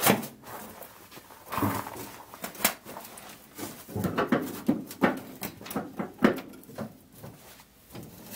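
Someone climbing into the driver's seat of an old Triumph Spitfire: clothing rustling, short squeaky creaks and a string of irregular knocks and clicks, the sharpest about six seconds in.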